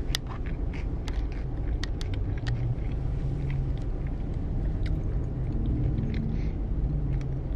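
Steady low rumble of a vehicle in motion, with scattered light clicks and rattles.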